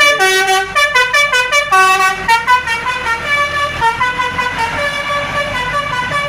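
Bus 'telolet' horn, a set of air trumpets, playing a quick melody of short notes that step up and down in pitch.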